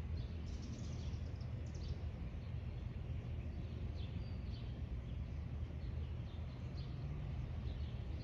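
Scattered short, high bird chirps over a steady low rumble of outdoor background noise.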